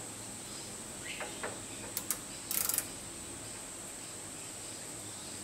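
A few small metallic clicks and a short rattle, loudest about two and a half seconds in, as a micrometer is picked up and handled at the lathe. A faint steady high-pitched whine runs underneath.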